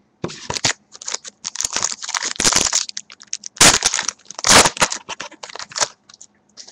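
Plastic wrapper of a trading-card pack crinkling and crackling as it is handled and torn open, in a run of rustling bursts, the loudest about three and a half and four and a half seconds in.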